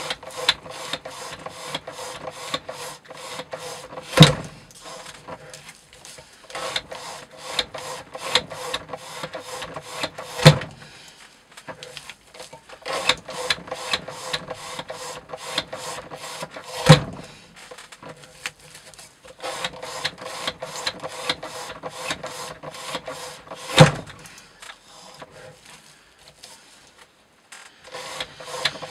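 Knife blade sawing back and forth through rope on a weighted rope-cutting wear-test rig, in quick regular strokes. Four times, about every six and a half seconds, a much louder knock ends a run of strokes, followed by a short pause.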